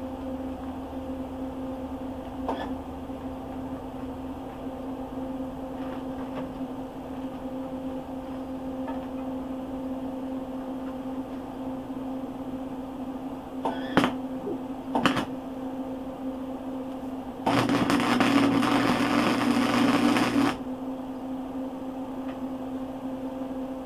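Electric welder laying tack welds onto sheared-off bolt stubs: two short sharp snaps about a second apart, then about three seconds of loud, steady arc crackle, over a constant electrical hum.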